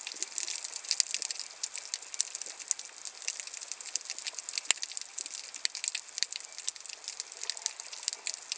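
Underwater ambience over a rocky seabed: a dense, continuous crackle of tiny clicks and snaps, with a few louder clicks here and there.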